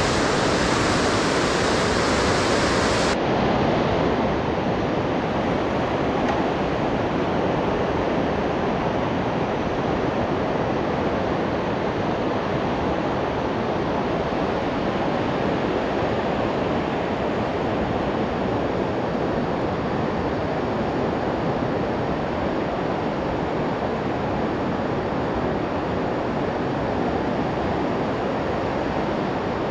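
Steady rush of the Seti River's whitewater churning through a narrow rock gorge. The sound turns a little duller about three seconds in.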